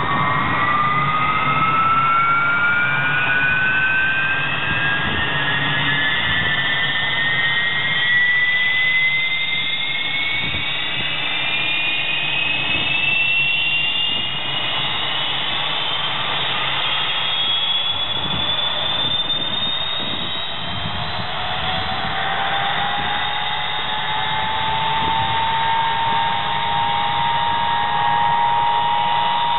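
Ilyushin Il-76 turbofan engines starting up: a high whine climbs steadily in pitch for about twenty seconds as an engine spools up over a low rumble. Just past halfway a second, lower whine starts rising and levels off near the end as the next engine comes up to speed.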